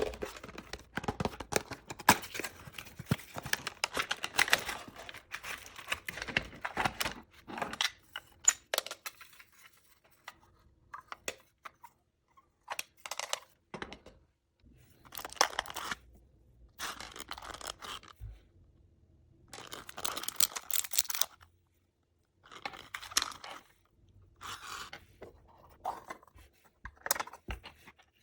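Hands tearing and crinkling packaging wrapping: dense crackling for the first eight seconds or so, then short bursts of tearing and rustling with quiet gaps between.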